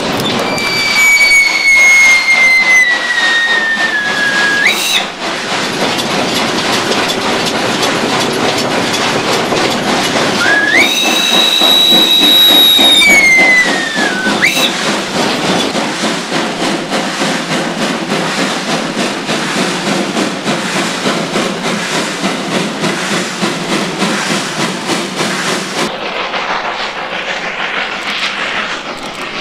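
Steam whistle of ex-Deutsche Reichsbahn class 52 locomotive 56 548, heard from the cab as two long blasts over the steady rattle of the running engine. The first blast slides down in pitch. The second is higher and held steadier. Near the end the sound turns quieter and more distant as the train is heard from beside the track.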